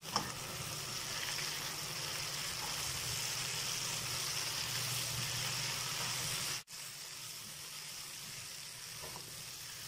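Cauliflower florets and potato pieces sizzling in hot oil and masala in a frying pan as a spatula stirs them: a steady hiss over a low hum. The sound cuts out briefly about two-thirds of the way through, then carries on a little quieter.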